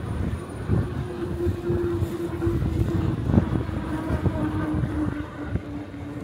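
Wind buffeting and road rumble from riding an e-bike, with a steady hum that holds from about a second in, steps slightly lower in pitch midway and fades near the end.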